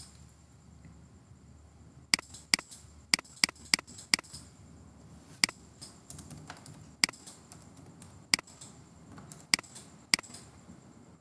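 Computer mouse clicks and keyboard key presses, about a dozen short sharp clicks at uneven intervals, bunched together early on and more spread out later.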